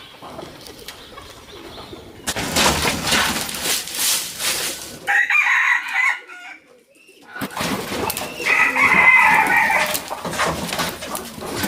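Domestic chickens: a rooster crowing and hens clucking, with two drawn-out calls about halfway through and again near the end, over bouts of rustling noise.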